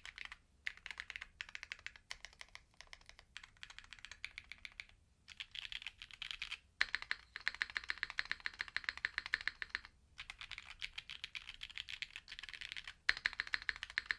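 Mechanical keyboard with prototype long-pole linear switches, lightly lubed on the stem, in an FR4 plate with GMK doubleshot keycaps, typed on quickly. The clacky keystrokes come in fast runs broken by brief pauses every few seconds.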